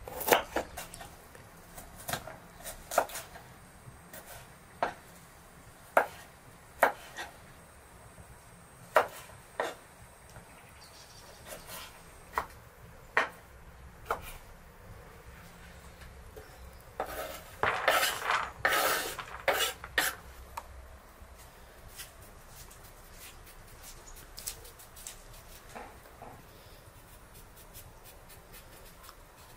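Kitchen knife chopping carrots on a wooden cutting board: single sharp chops at irregular intervals, then a quick burst of rapid chopping a little past the middle, then only faint scattered cuts near the end.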